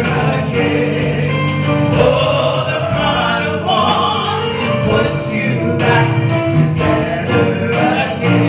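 Gospel praise team singing together in B flat, with a live band under them: a sustained bass and keyboard line and a steady drum beat.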